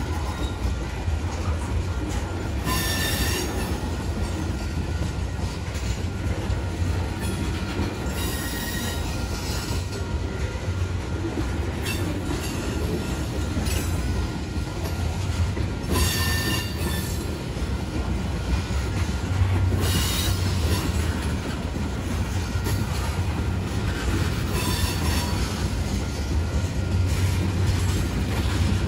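Freight train of tank cars and covered hoppers rolling past at close range: a steady rumble of steel wheels on rail, broken by several brief, high-pitched wheel squeals a few seconds apart.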